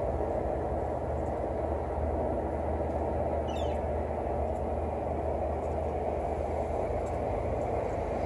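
A steady low outdoor rumble with no breaks, like distant traffic or wind, and a small bird's brief call of a few falling notes about three and a half seconds in.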